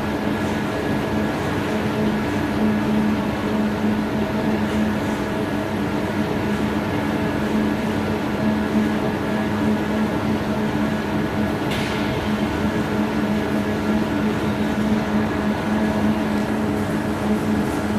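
Steady hum of factory machinery: an even drone with several constant tones in it, unchanging throughout, with one brief higher-pitched sound about twelve seconds in.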